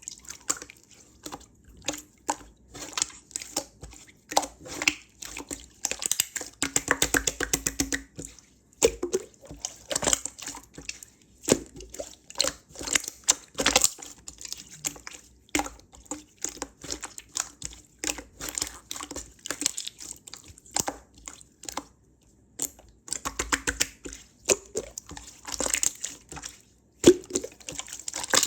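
Aloe slime being squished and pressed by hand: a run of wet clicks and pops, with a quick rattle of pops about seven seconds in.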